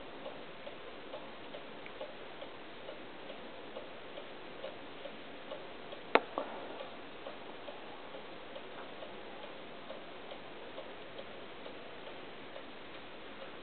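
Faint, steady ticking, a little over two ticks a second. About six seconds in comes a single sharp kiss, lips pressed to a white rat's fur.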